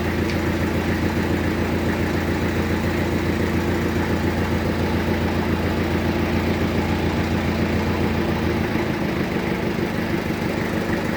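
Sawmill bandsaw machine running steadily with a deep, even hum; a bit over eight seconds in, the lowest part of the hum drops away and the sound changes.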